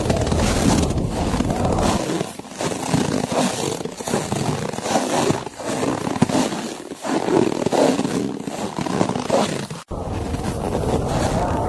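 Footsteps crunching through snow, about one step every second and a half, over blizzard wind. Near the end there is a very brief dropout, after which the low rumble of the wind comes back.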